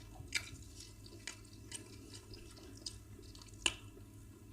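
Soft, wet clicks and smacks of someone eating fufu and egusi soup, a handful spread out, the sharpest near the end.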